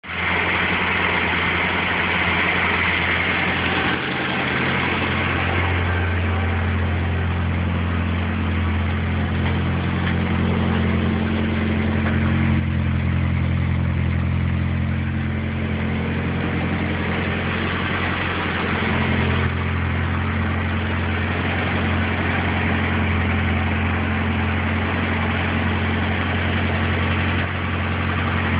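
MG MGB's four-cylinder B-series engine running steadily at idle.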